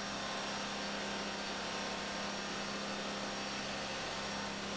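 Boat engine running steadily while underway: a constant low hum under a broad, even hiss.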